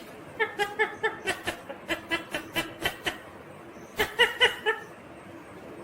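Ringneck parakeet chattering in a quick run of short pitched notes for about three seconds, then a shorter burst about four seconds in.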